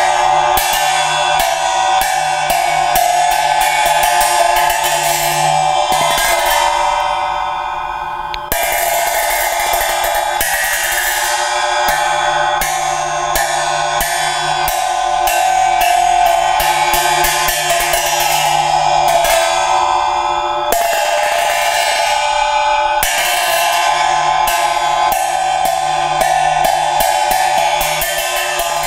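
A pair of Tibetan silnyen cymbals played in the Drikung Kagyu ritual manner: a steady run of ringing clashes. The strokes quicken into a roll, and each roll is cut off by a strong fresh clash that starts the next round, twice.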